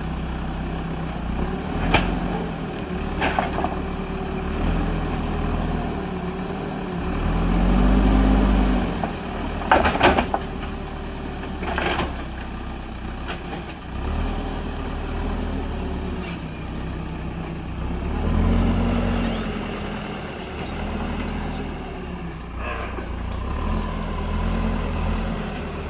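Diesel engine of a JCB backhoe loader running steadily, rising in revs twice as the hydraulics work under load. Several sharp knocks cut through it, the loudest about ten seconds in.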